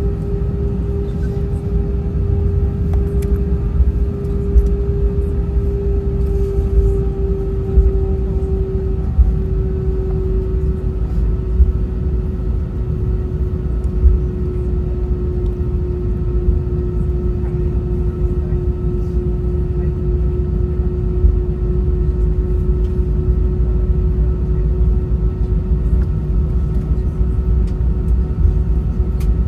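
Airbus A320 cabin noise: a loud, steady low rumble of the jet engines and the aircraft rolling on the ground, with a steady hum that drifts slightly lower over the first ten seconds and occasional small bumps.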